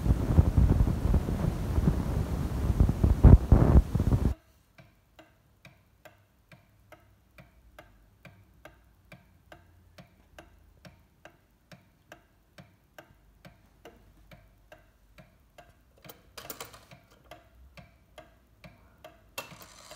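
Loud rushing noise on the microphone for the first four seconds, then the antique New Haven cottage mantel clock's pendulum movement ticking steadily, with a brief scrape near the end as the minute hand is turned by finger.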